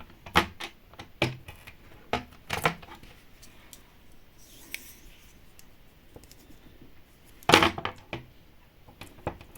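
Light clicks and taps of small plastic miniature kit pieces being handled and pressed into place, with a louder knock about seven and a half seconds in.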